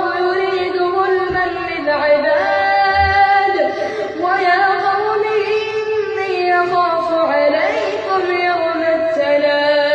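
A male reciter chanting the Quran in long, held melodic notes that glide and turn, one voice throughout.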